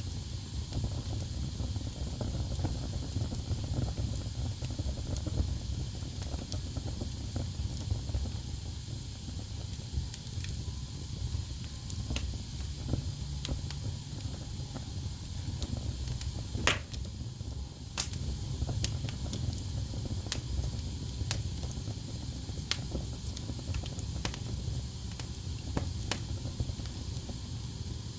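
Wood fire burning in a fireplace: a steady low rumble of flames under a hiss, with irregular crackles and pops from the logs, one sharp pop about seventeen seconds in standing out above the rest.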